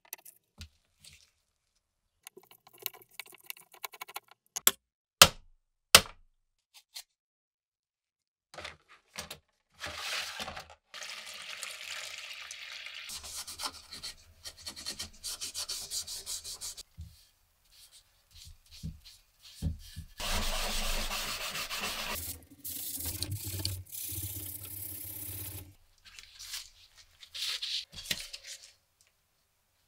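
Hand restoration work on an antique saw. At first there are scattered sharp clicks and taps of a screwdriver on the saw's handle screws. Then come long stretches of steady rubbing and sanding on the wooden handle, loudest in the second half.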